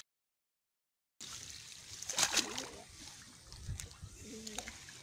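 Complete silence for about the first second, then water splashing and sloshing as a bamboo-framed hand net is lowered and pushed through shallow, weedy pond water. The loudest splash comes about two seconds in.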